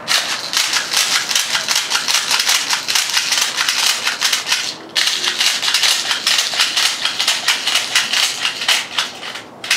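Airsoft BBs being pushed from a tube speed loader into an M4 magazine, a rapid run of small plastic clicks and rattles as the plunger is worked. There is a brief break about five seconds in, then it picks up again.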